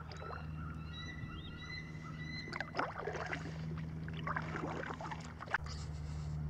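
Bald eagles calling to each other in thin, high whistled notes, over a few small splashes of water at the kayak.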